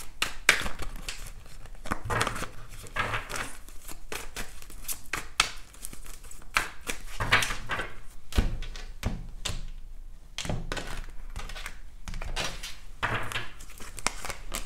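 A deck of tarot cards shuffled by hand: repeated bouts of quick papery slapping and rustling, with brief pauses between bouts.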